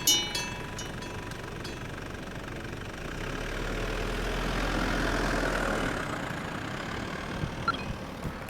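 Electric bell of a railway level-crossing signal ringing its last strokes, stopping a fraction of a second in. A vehicle then passes, swelling to its loudest about five seconds in and fading away.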